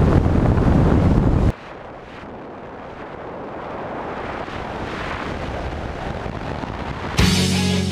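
Car driving at highway speed: heavy wind buffeting on the microphone over road noise, which cuts off abruptly about a second and a half in to quieter road noise that slowly builds. Rock music with electric guitar starts near the end.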